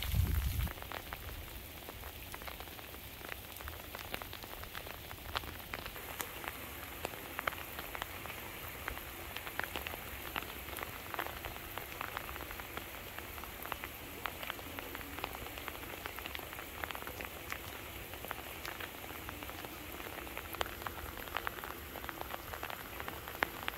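Freezing rain falling: a steady hiss dotted with many small, sharp drop impacts ticking on hard, icy surfaces. A low rumble stops about a second in.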